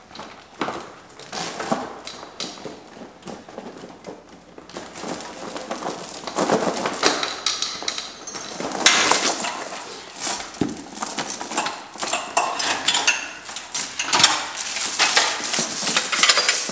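Steel link snow chains clinking and jangling as they are unhooked and pulled off a lawn tractor's rear tire, in irregular metallic rattles that grow busier and louder about a third of the way in.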